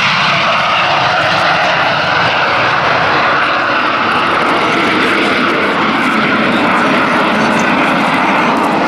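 Two de Havilland Vampire jets taking off in formation and climbing away, their jet engines at take-off power making a loud, steady rushing noise, with a thin high whine that fades in the first second.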